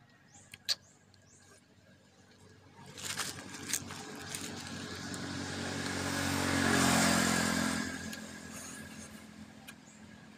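A motor vehicle driving past: engine and tyre noise rise gradually, peak about seven seconds in, then fade away.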